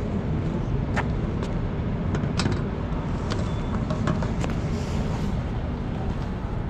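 Steady low outdoor rumble of a city, with a few sharp taps of footsteps on paving stones coming up close. Near the end come handling bumps as the action camera is picked up.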